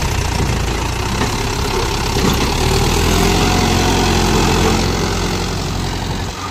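Tractor diesel engine running steadily at a loud, even level with a deep low hum.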